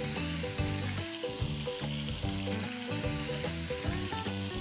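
Semolina-coated pomfrets shallow-frying in hot oil in a stainless steel pan, a steady sizzle, under background music with a melody of short notes.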